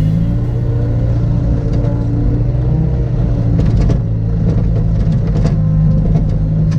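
Excavator's diesel engine running steadily, with a held hydraulic whine for the first few seconds and several sharp knocks later on.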